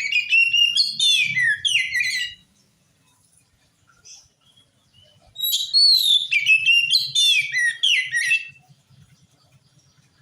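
Oriental magpie-robin (kacer) singing two rich phrases of varied whistles and chattering notes, one at the start and one about five seconds in. It is in full, vigorous song, the kind used to provoke other magpie-robins into answering.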